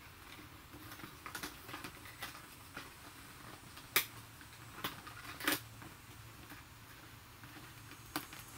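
Light clicks and a few sharp plastic snaps as a doll box's packaging tabs and ties are pried and pulled out with pliers. The loudest snap comes about four seconds in, with another at about five and a half seconds and one near the end.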